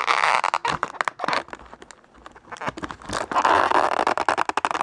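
Crinkling and rustling of thin plastic packaging being handled and pulled open to get a toy figure out, in two spells with a quieter gap in the middle.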